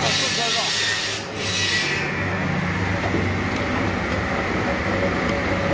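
Automatic wood log segment sawing machine running with a steady hum. For about the first two seconds a harsh, hissing rasp sits over it, broken briefly just after a second in.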